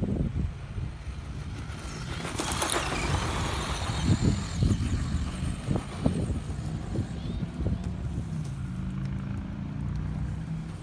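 Off-road RC trucks driving over dirt, the motor note shifting in pitch, with wind rumbling on the microphone.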